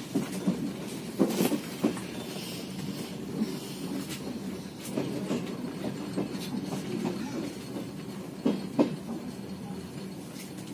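Passenger train running on the rails, heard from inside the carriage: a steady low rumble with irregular clacks from the wheels crossing rail joints, two louder ones a little after a second in and two more near the end.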